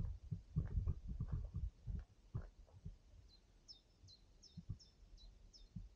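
Irregular dull low thuds from the person carrying the camera as he walks, strongest in the first two seconds. From about three seconds in, a small bird gives a run of about six short high chirps.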